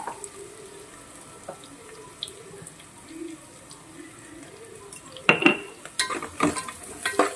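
Sliced onions frying gently in oil in a metal pot, with a low steady sizzle. About five seconds in, a steel spoon scrapes and knocks against the pot several times as the onions are stirred.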